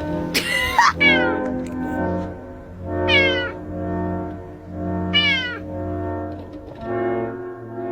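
A cat meowing three times, each call a short one that falls in pitch, over background music.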